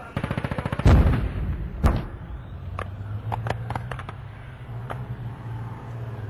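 Live-fire gunfire and explosions: a rapid burst of automatic fire, then a heavy blast with a long low rumble about a second in and another sharp report just under a second later. About eight single shots follow over the next few seconds, over a steady low drone.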